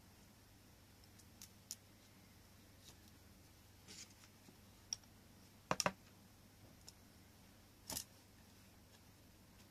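Light clicks and taps from handling a picture frame as it is turned over, with a sharp cluster of knocks about six seconds in and another about eight seconds in.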